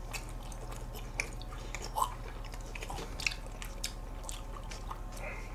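Close-miked eating of ice cream: plastic spoons scraping and tapping in small cups, with soft mouth and chewing sounds and a few short clicks. A low steady hum runs underneath.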